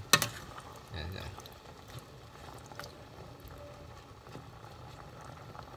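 Chicken in coconut milk with pineapple simmering faintly in a stainless steel pot, with a sharp clink of a metal spoon against the pot right at the start. A brief low voice sound comes about a second in.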